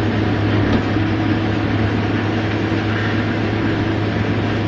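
Combine harvester running steadily while harvesting rapeseed: an even, constant engine drone with a low hum.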